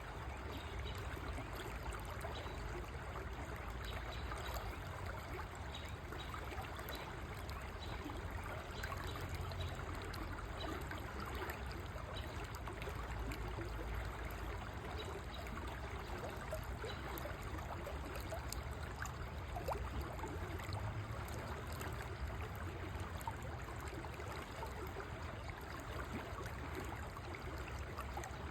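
River water flowing steadily over and around stones, a continuous babbling and trickling rush with no breaks.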